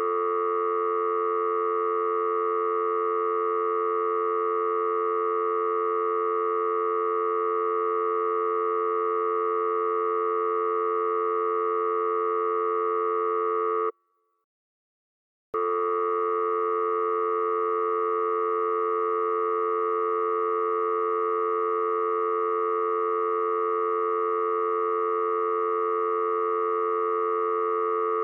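Telephone dial tone: a steady, unbroken tone that cuts off about fourteen seconds in, leaves a second and a half of silence, then starts again and holds steady.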